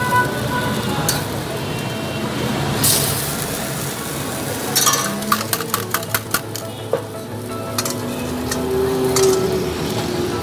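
Street-stall flat griddle with egg-wrapped patties frying and sizzling, while a metal spatula scrapes and taps on the griddle. About five seconds in comes a quick run of sharp metal clicks.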